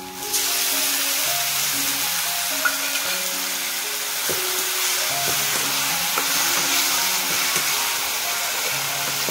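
Tomato purée poured into hot oil and fried onion masala in a steel kadai: a loud sizzle starts suddenly about half a second in and keeps up while a metal spatula stirs and scrapes the pan. Background music with held notes plays underneath.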